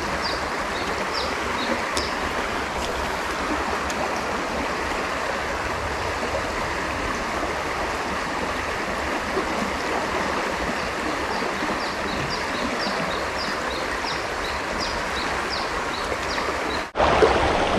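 Shallow river running over rocks, a steady rushing babble of water. Short high chirps repeat a few times a second in two runs, at the start and again later on. The sound breaks off abruptly near the end.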